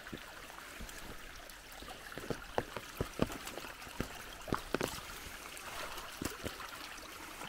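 Muddy overflow water from a full pond running and trickling down a shallow channel through grass, with scattered short knocks.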